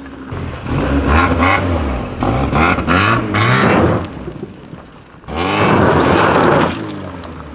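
Car engine that has sat unused for months being cranked and firing, revving unevenly in two loud stretches with a brief lull between.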